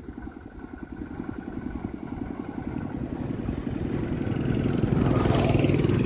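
A small motor-vehicle engine running with a rapid, even beat and growing steadily louder as it approaches, a steady low hum coming in near the end.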